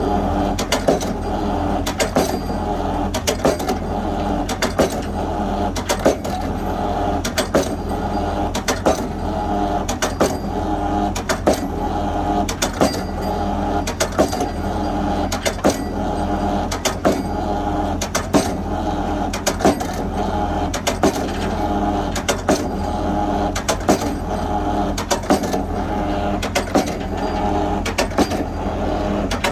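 Excavator-mounted drop hammer driving a pile: sharp impacts every second or two over the steady drone of the excavator's engine.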